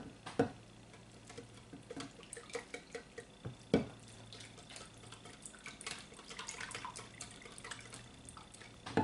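Wire whisk beating a thin liquid mixture of milk, eggs, oil and coffee in a measuring pitcher. Quick, irregular light clicks of the whisk against the pitcher mix with the sloshing of the liquid, and there are a few sharper knocks, one near the start and one a little before halfway.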